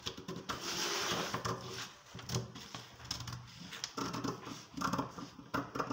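Dressmaking scissors cutting through brown paper along a curved pattern line, a steady crisp cutting sound for the first couple of seconds, then intermittent snips and paper rustles.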